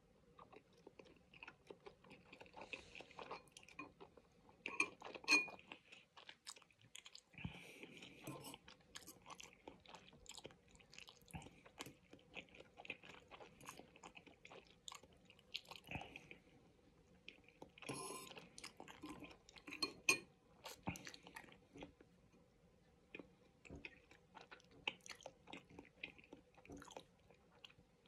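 A person eating udon noodle soup: slurping noodles and chewing, with irregular wet clicks and smacks.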